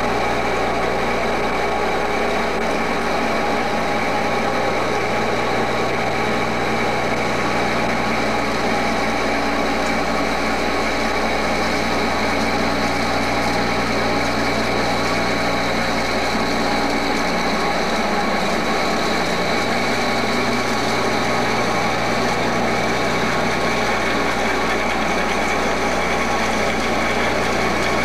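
Engine lathe running while a large twist drill in the tailstock bores into the end of the spinning metal workpiece. A steady machine noise with several held tones, unchanging throughout.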